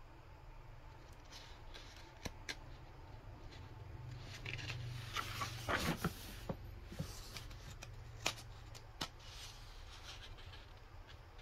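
Pages of a paper instruction booklet being turned and smoothed down by hand: paper rustling with scattered light flicks and taps, the busiest rustle about five to six seconds in.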